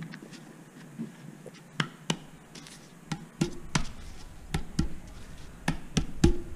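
Sharp metal knocks and clinks as metal fork parts and a short metal tube are handled and bumped together. There are about ten irregular hits, growing louder toward the end, and some leave a brief ring.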